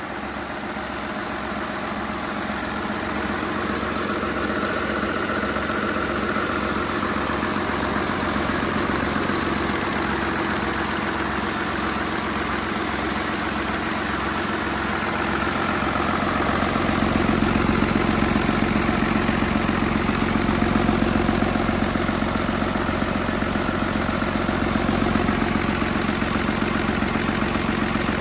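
Mercedes OM 926 LA 7.2-litre inline-six turbodiesel running at a steady idle, out of the truck on a stand. It gets louder about a third of the way in and again past halfway.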